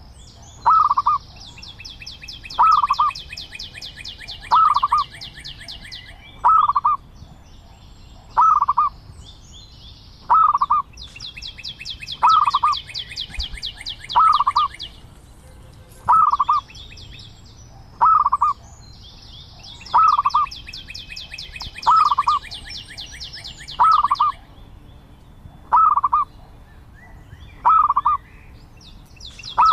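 Zebra dove cooing: a short note repeated about every two seconds, the loudest sound throughout. Behind it a quieter, fast, high trill comes and goes in stretches of a few seconds.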